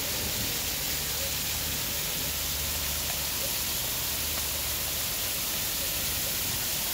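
Heavy rain and hail pouring down in a steady, dense hiss.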